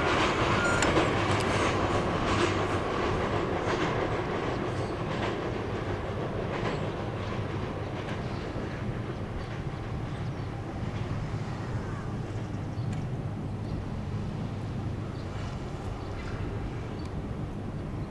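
E257 series 2000-subseries electric train running past, its wheels clicking over the rail joints. The clicking thins out and the rumble fades over several seconds.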